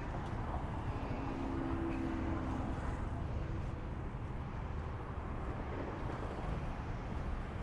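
Street traffic ambience: a steady low rumble of road traffic, with a brief humming tone between about one and three seconds in.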